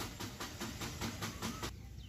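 Mahindra Scorpio 2.6-litre diesel engine being cranked by its starter motor, an even pulsing of about eight beats a second that stops near the end. It is a slightly long crank, the hard-starting fault that the mechanic is chasing, which he links to fuel injector back leakage.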